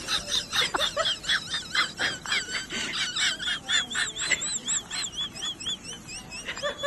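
A crowd of small birds chirping, many high, quick rising-and-falling calls overlapping continuously, and the sound cuts off abruptly at the end.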